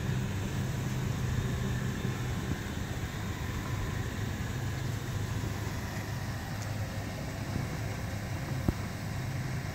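GMC Sierra pickup's engine idling with a steady low hum, and a single light click near the end.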